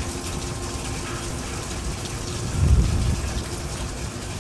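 Steady downpour of rain during a thunderstorm, with a low rumble of thunder swelling up about two and a half seconds in.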